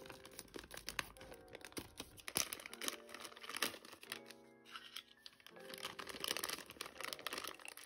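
Crinkly packaging rustling and tearing in irregular crackles as small figure parts are unwrapped by hand, over soft background music.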